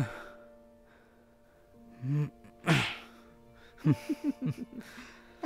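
People giving short breathy laughs, with a quick run of laughter about four seconds in, over soft background music with held notes.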